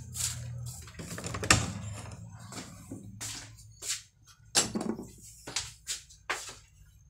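Footsteps and phone handling noise: a string of irregular short knocks and scuffs, the loudest about a second and a half in. A low hum cuts off within the first second.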